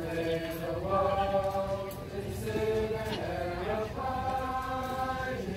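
A mixed group of young men and women singing together, holding long notes that change every second or so.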